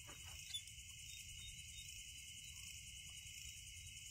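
Steady, high-pitched chorus of crickets and other night insects in the forest, with a faint tick about half a second in.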